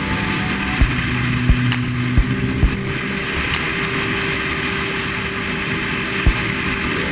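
Steady rushing vehicle noise with several sharp knocks and a few low steady tones underneath.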